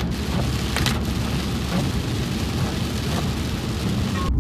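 Heavy rain falling on a car's roof and windshield, heard from inside the cabin: a steady dense hiss with a few sharper hits, cutting off suddenly near the end.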